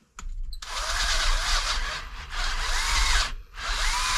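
Electric power drill boring out a damaged thread hole in a motorcycle cylinder head to oversize it for a helicoil insert. It runs in two stretches with a short break about three and a half seconds in, its pitch rising and falling as the speed varies.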